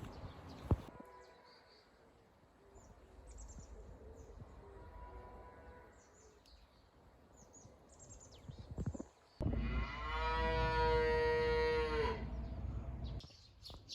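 A cow mooing once, a single long call of about three seconds, starting past the middle of the stretch. Faint chirps can be heard before it.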